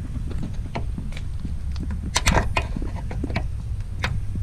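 Flat screwdriver prying at a gas hood strut's upper end fitting, giving scattered small metal clicks and scrapes, with a cluster of them about two seconds in, over a steady low rumble.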